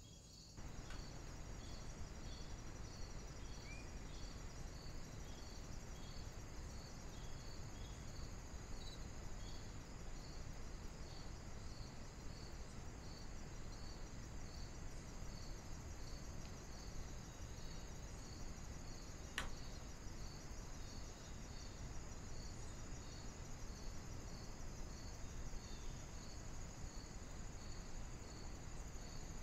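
Crickets chirping in woodland: a regular high chirp about one and a half times a second over a steady higher trill, with low steady noise beneath. A single sharp click comes about two-thirds of the way through.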